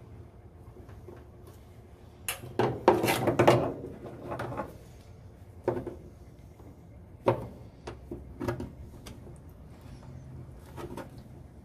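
Hands handling wires, crimp terminals and a crimping tool: scattered rustles, clicks and small knocks, with the loudest cluster of rustling about two to four seconds in.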